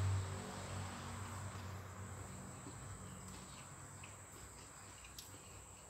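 Faint, steady, high-pitched insect trill in the background, with a few faint clicks.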